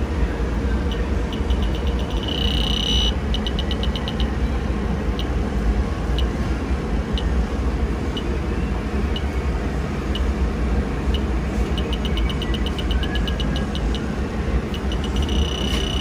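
Fieldpiece heated-diode refrigerant leak detector ticking about once a second, over a steady low hum. Several times the ticking speeds up into a rapid run and then a steady high beep, about two and a half seconds in and again near the end. This is the detector alarming on R-404A refrigerant at the evaporator coil: a leak.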